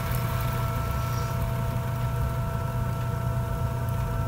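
Electric potter's wheel running steadily: a low motor hum with a faint steady whine.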